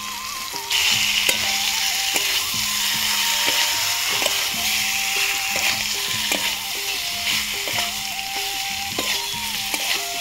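Fried potato cubes tipped into hot masala and oil in a steel kadai: a loud sizzle starts about a second in and keeps on as the pieces fry. A steel spatula stirs them through, clicking and scraping against the pan now and then.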